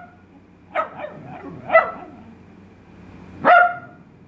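Italian Greyhound barking on command, three short, high barks: a softer one about a second in, then two louder ones, the last and loudest about three and a half seconds in.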